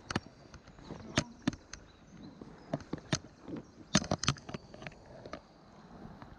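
Irregular sharp clicks and taps from fly-fishing gear being handled as fly line is stripped and cast by hand, over a faint steady background hiss.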